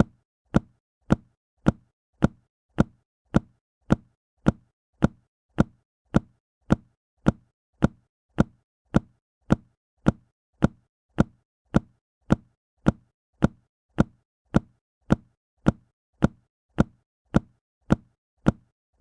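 A book dropped flat onto a hard surface, the same short, heavy thud repeated at an even pace of a little under two a second.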